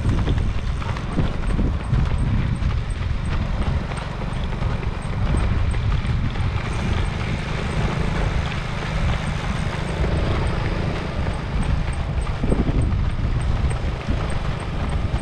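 Footfalls of a lead pack of marathon runners, running shoes striking the asphalt in a quick, continuous patter over a steady low rumble.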